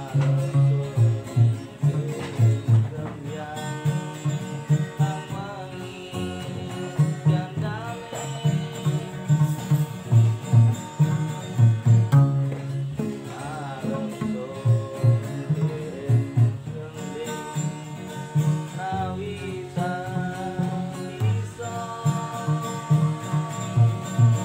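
Banyuwangi-style folk song played on makeshift instruments: a plucked string melody over a steady beat of low thumps, with a voice singing along.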